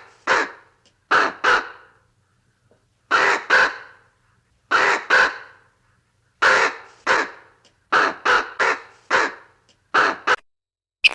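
An animal giving a series of short, harsh, raspy calls, mostly in quick pairs, about fifteen in all with short pauses between.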